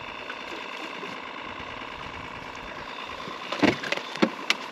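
Boat motor running steadily with an even hum. A few sharp knocks and clicks come near the end.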